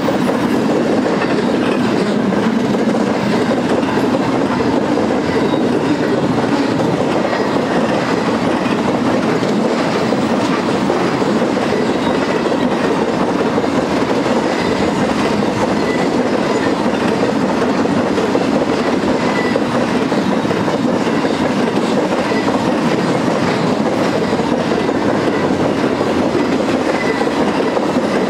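Double-stack intermodal freight cars and trailer-carrying flat cars rolling past: a steady rumble and clatter of steel wheels on the rails, with no break in the sound.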